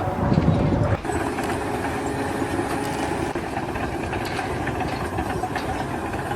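An engine or heavy machine running steadily, its sound shifting abruptly about a second in.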